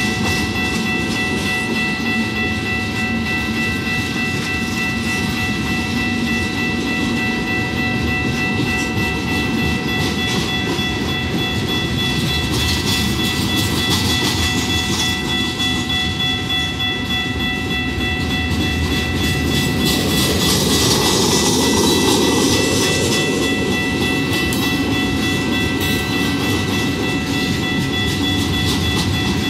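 Freight cars of a mixed freight train rolling past at a grade crossing, steel wheels clacking and rumbling on the rails, with the crossing's warning bell ringing steadily over it. The rolling noise grows louder around twenty seconds in.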